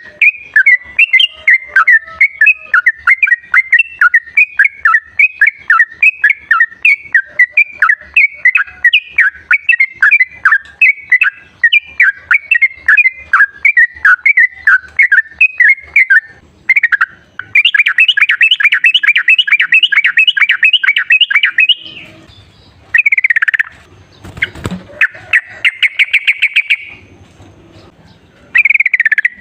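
Yellow-vented bulbul song: a long run of rapid, repeated chirping notes, breaking about two-thirds of the way in into a fast trill of a few seconds, followed by short down-slurred whistles and another brief trill.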